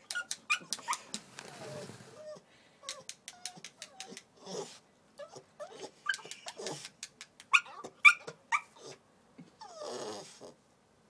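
Staffordshire bull terrier puppy whimpering and crying in short, broken sounds, shut outside and wanting to be let back in, with many small sharp clicks among the cries.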